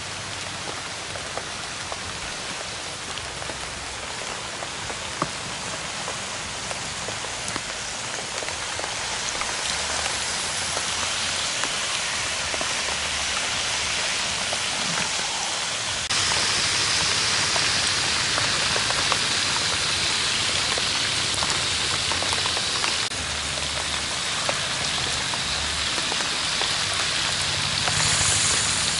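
Hot oil sizzling steadily in a wok around a whole chicken that is deep-frying. The hiss steps louder a little past halfway.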